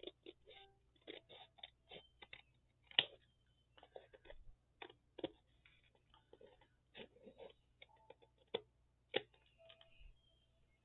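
Scissors snipping paper in short, irregular cuts while trimming off stray edges.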